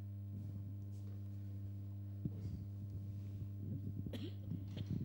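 Steady low electrical hum from the hall's sound system, with irregular soft knocks and rustles that grow busier over the last two seconds and a sharp click about four seconds in.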